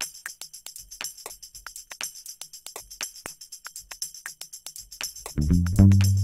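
Background instrumental music with a quick, steady jingling percussion beat; a loud low bass part comes in near the end.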